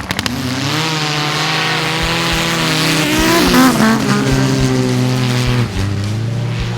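Side-by-side UTV engines running hard at high revs, more than one at once, as in a drag race up a hill. The engine pitches hold steady, then rise and fall about halfway through.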